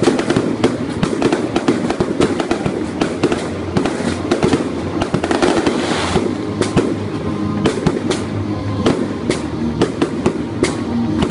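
Fireworks display being fired: a dense, continuous run of sharp bangs and crackling, several shots a second, thickening into a burst of crackle about halfway through, with music playing underneath.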